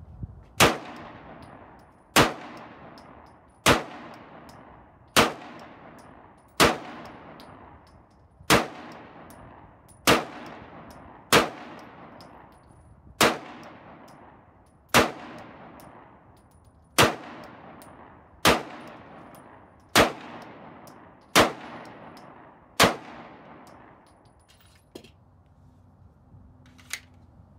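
SIG M11A1 9mm pistol fired fifteen times at a slow, steady pace, about one shot every one and a half seconds, each shot trailing off in a long fading echo. Near the end come a couple of light clicks as the pistol and magazine are handled.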